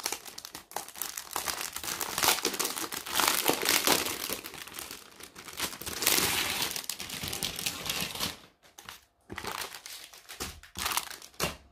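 Clear plastic wrapping and plastic bags crinkling as they are handled and pulled from a diamond painting kit, in dense crackling spells with a short pause about nine seconds in.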